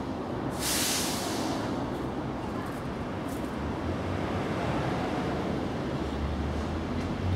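Steady outdoor background noise, a low rumble under a hiss, with a brief rustling burst about a second in.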